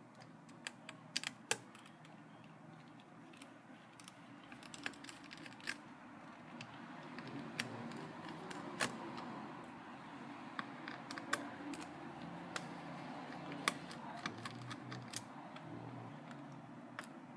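Scattered small clicks and taps of a screwdriver working screws and handling the plastic case of a laptop, over a low steady hum.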